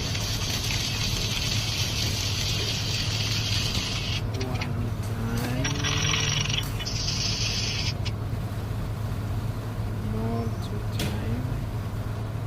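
Electric arc welding crackling and hissing in stretches. It stops about four seconds in, comes back for two short runs around six and seven seconds, then stops again, over a steady low hum.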